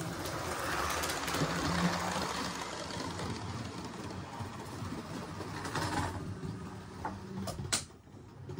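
A model HST train running along the track and passing close by: its motor and wheels on the rails make a steady running noise, loudest about two seconds in, then fading. There is a sharp click near the end.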